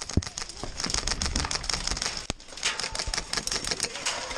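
Airsoft rifles firing in bursts: rapid, irregular clicking and snapping of BB shots, in clusters about a second in and again near three seconds.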